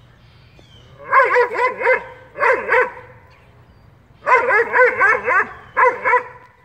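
Weimaraner barking in rapid, high-pitched yips, in four quick runs of several barks each.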